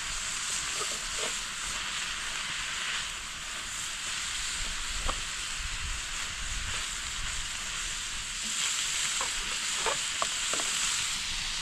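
Ground meat and mushrooms frying in a pan on a small camp stove: a steady sizzle with a few faint pops.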